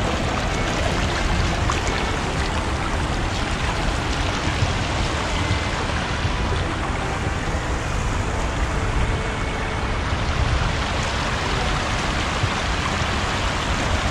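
Shallow river water flowing over a rock ford and small rapid, a steady rushing and rippling.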